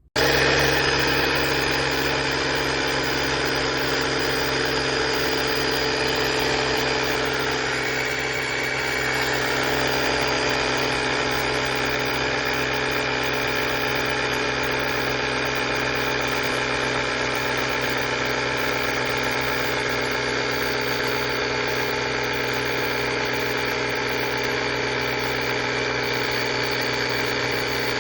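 Small electric piston air compressor built into a YaberAuto 6000A jump starter pack, switching on abruptly and running steadily while inflating, set to shut off by itself at its preset pressure.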